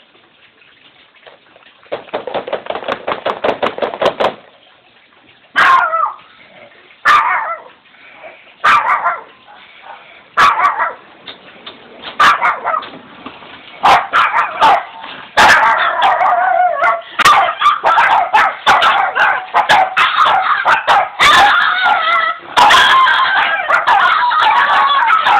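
Shih Tzu barking an alarm after a short rasping sound: single sharp barks about every second and a half at first, then from about halfway through several dogs bark together in a continuous, overlapping chorus.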